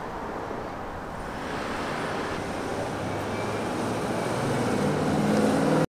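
Road traffic: a motor vehicle approaching on the street, its engine hum growing steadily louder.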